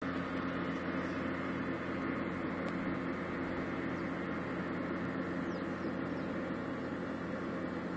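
Steady low drone of a river boat's diesel engine carried across the water, a constant hum over a background hiss.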